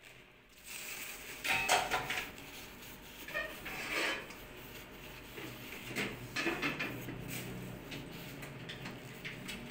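Tissue being rubbed and wiped over the metal inner lid of a Philips HD4515 rice cooker, irregular scrapes with light knocks and clatter of handling, loudest about a second and a half in and again near four seconds in.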